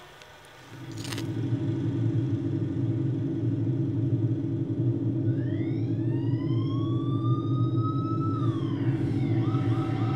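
Film sound effects: a steady low rumble sets in about a second in. From about halfway a siren-like wail glides upward, holds, and drops off, and a fast repeating warble follows near the end.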